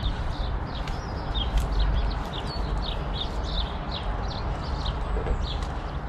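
Bird calls: a string of short, high, falling chirps, about three a second, over a steady low rumble.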